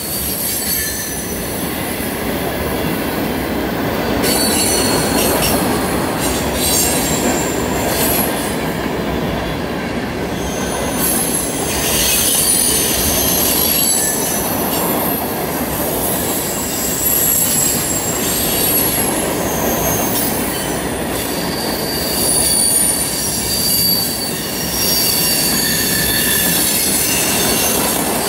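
Freight train tank cars rolling past on a curve: a steady rumble of steel wheels on rail, with thin high-pitched wheel squeal coming and going, the flanges grinding against the rail through the curve.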